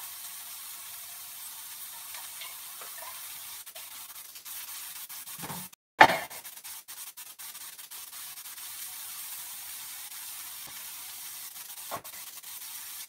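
Grated cauliflower and carrot sizzling steadily in hot oil in a frying pan, with onion, garlic and ginger. The sound cuts out for a moment about six seconds in, then comes a single sharp knock, and a smaller click near the end.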